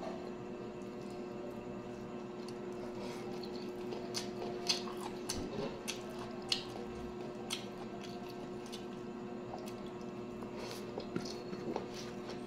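A person eating with their fingers: wet chewing and squishing, with a run of sharp mouth smacks and clicks between about four and eight seconds in, over a steady background hum.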